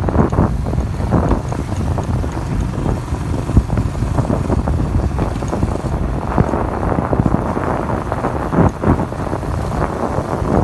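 Wind buffeting the microphone on a moving motorbike, with the bike's engine running underneath and frequent knocks as it jolts over a rough dirt and concrete track.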